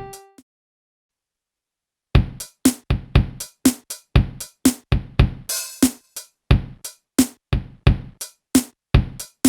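Casio Casiotone SA-46 mini keyboard: a held note fades out, then after about two seconds of silence a built-in drum-machine rhythm starts, a steady beat of kick and snare at about two hits a second.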